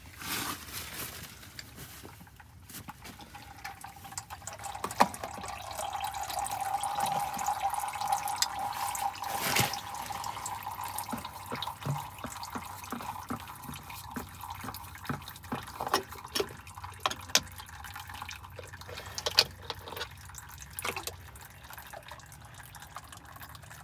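Fluid draining from a Kubota tractor in a thin stream into a plastic tub already holding fluid. It makes a steady pouring sound that fades after several seconds into irregular drips and small splashes as a filter is taken off and emptied into the tub.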